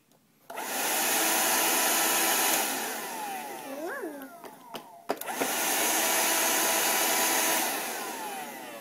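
Shark hand vacuum motor switched on and running with an even whoosh, then winding down after about two seconds. A click follows, the motor comes back on a little after the halfway mark, runs for about two and a half seconds, and winds down again near the end.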